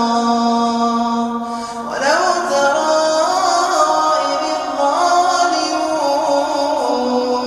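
A man's voice reciting the Quran in a melodic, drawn-out chant, holding long notes, with the pitch rising about two seconds in and again near five seconds.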